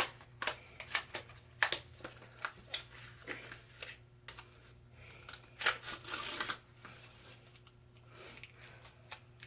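Packaging being opened and handled by hand: an irregular string of sharp clicks and taps, with a brief rustle about six seconds in.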